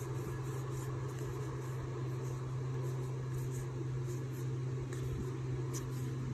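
A steady low mechanical hum, like a fan or air conditioner, runs throughout. Over it, faint light ticks and rustles of baseball cards slid one by one from hand to hand.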